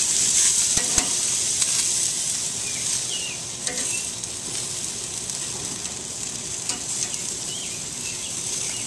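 Chicken thighs and bacon-wrapped beef steaks sizzling steadily on the hot grate of a Kamado Joe charcoal grill. A few light clicks come from metal tongs touching the grate near the start and again about four seconds in.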